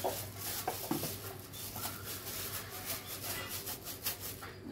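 Gloved hands rustling and shifting raw marinated chicken wings in a stainless steel pot, with crinkling of the plastic gloves and a few short knocks.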